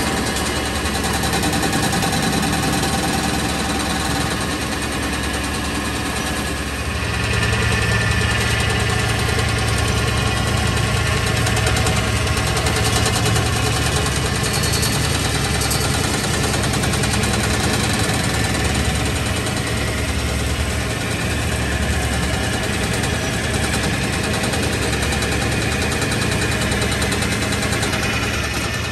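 Farm machinery engine running steadily, with a deeper hum setting in about seven seconds in.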